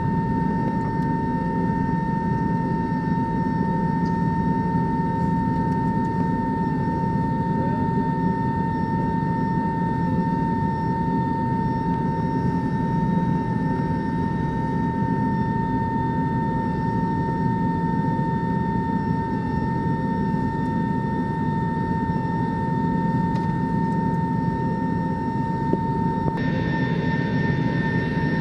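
Jet airliner cabin noise while taxiing: a steady engine rumble with a constant high whine from the jet engines, heard from inside the cabin.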